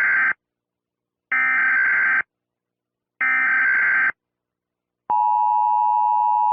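Emergency Alert System SAME header: the end of one burst of digital data tones, then two more bursts about a second long each with short silences between. About five seconds in, the steady two-tone EAS attention signal (853 and 960 Hz) begins.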